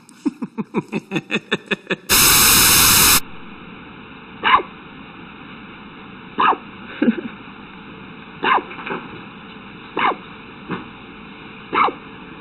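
A dog hiccuping: about six short, sharp hics spaced roughly a second and a half to two seconds apart, over a steady background hum. About two seconds in there is a loud burst of static noise lasting about a second, and before it a quick run of about ten short pulses.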